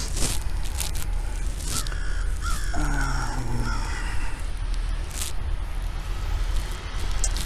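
Crows cawing, a short run of several caws about two seconds in, over a steady low rumble with a few clicks.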